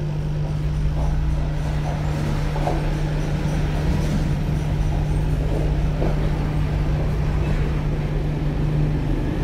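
Steady low hum over a constant background rumble and hiss, with a few faint ticks.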